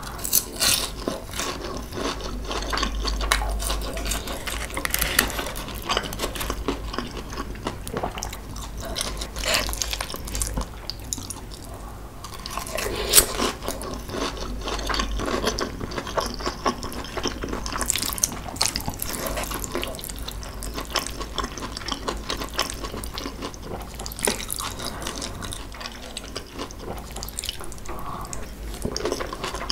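Close-miked wet chewing and mouth sounds of a person eating saucy kimchi tuna rice, with many small clicks and smacks and one sharper click a little before halfway.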